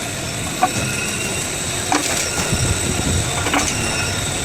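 Ashok Leyland truck running on the road, a steady rumble with a few short clunks and rattles.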